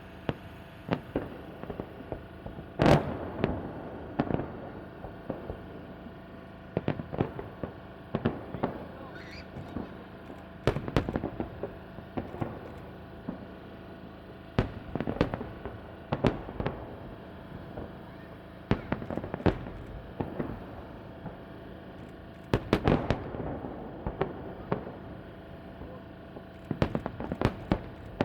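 Fireworks salute: shells bursting in sharp bangs at irregular intervals, some in quick clusters, the loudest about three seconds in.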